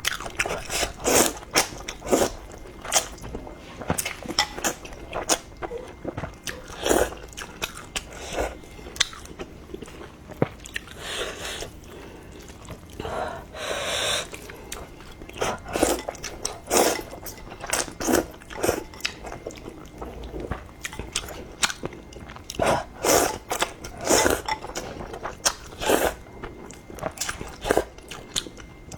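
Close-miked eating: steady chewing and biting with many short wet clicks and smacks, and one longer noisy sound about halfway.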